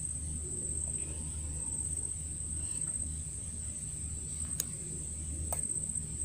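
Insects in the mangrove calling in one steady high-pitched drone, over a low pulsing hum, with two sharp clicks near the end.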